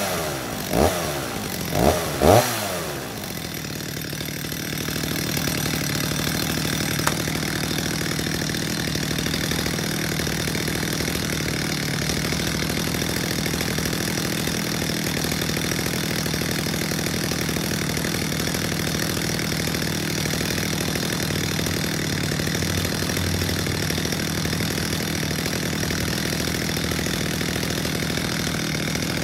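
Stihl two-stroke chainsaw just started from cold: a few short revs in the first couple of seconds, then it settles into a steady idle, left running to warm up.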